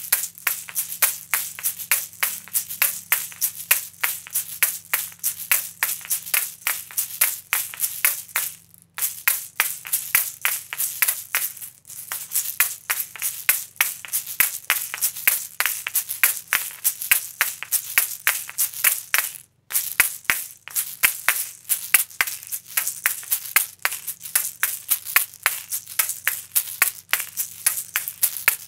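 Asalato (aslatua) shakers, two seed-filled shells joined by a cord, swung and clacked together in a fast, continuous rattling rhythm, with brief breaks about 9, 12 and 20 seconds in.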